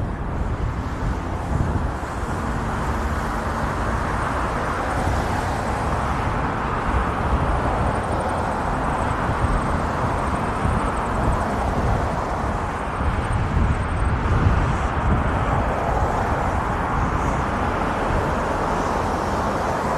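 Inline skate wheels rolling over a paved path: a steady rough rolling noise, with wind rumbling on the microphone.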